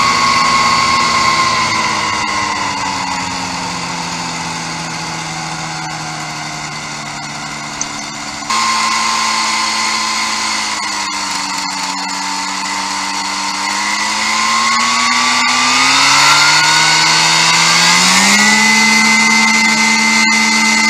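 Ultralight aircraft's engine running, its pitch falling over the first several seconds as the throttle comes back for the landing. After a sudden jump in level about eight seconds in, it runs low, then rises over a few seconds near the end and settles at a higher steady speed as the aircraft taxis on grass.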